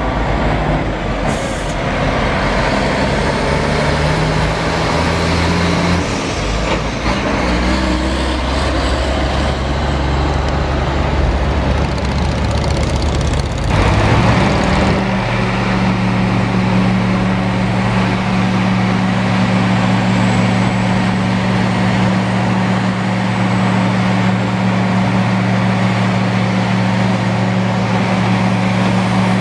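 Heavy diesel engines of tandem dump trucks and paving machinery running, with the engine note shifting in the first half. About halfway through it settles into a steady, deep diesel drone while a dump truck unloads asphalt into the paving machine.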